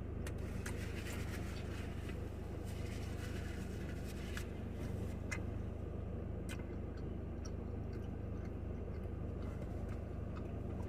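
Soft chewing clicks and mouth sounds from someone eating a burrito, over a steady low hum of an idling car.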